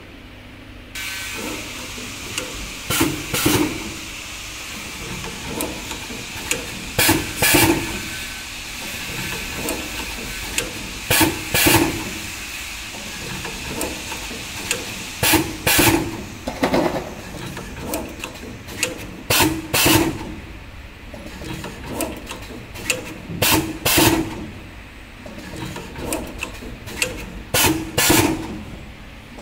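Automatic wire cut-strip-tinning machine with servo drive running its cycle: a steady whine and hiss start about a second in, and clusters of sharp pneumatic clacks and air hisses from its gripper and cylinders repeat about every four seconds.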